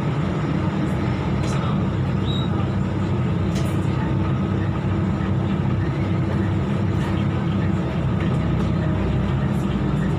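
Interior of a Volvo B12BLE city bus on the move: its rear-mounted diesel engine gives a steady low drone under road noise.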